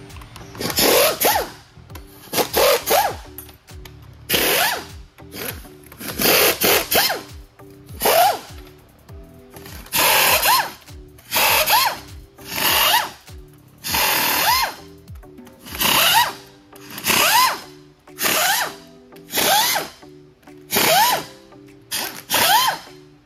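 Cordless power ratchet spinning out bolts from the front cover of an Eaton Fuller 10-speed truck transmission: about fifteen short bursts, one every second or so, each with a rising motor whine.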